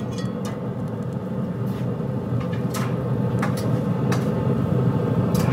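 Several light metallic clinks as a wire drumstick rack is lifted off the steel grates of a pellet grill with metal tongs, over the grill's steady low running hum.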